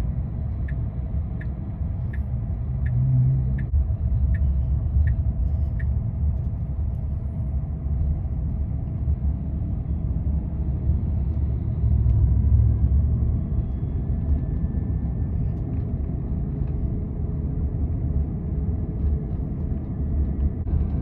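Steady low road and tyre rumble inside the cabin of a Tesla Cybertruck driving along while towing a travel trailer, swelling briefly twice. A light regular ticking, about three ticks every two seconds, runs through the first six seconds and then stops.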